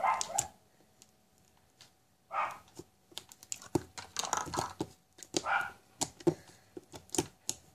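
Thick cake batter slime being squeezed, pulled out of its tub and pressed by hand on a plastic surface, giving a string of small sticky clicks and pops with a few short squelches.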